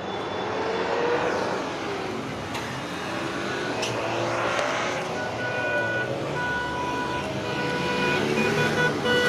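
Street traffic: a motor vehicle passes with its engine pitch rising and falling over a steady roadside din.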